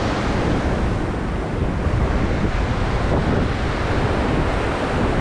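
Heavy ocean surf breaking and washing over a rocky lava shoreline, a steady rushing noise, with wind buffeting the microphone.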